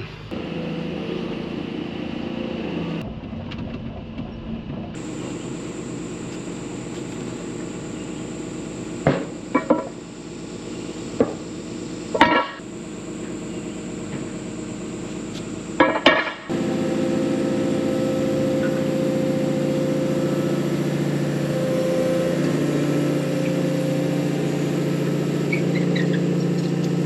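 Track hoe's diesel engine running steadily, with several sharp metallic clanks in the middle, likely from the heavy tractor weights being handled. Near the middle the engine comes in louder and fuller.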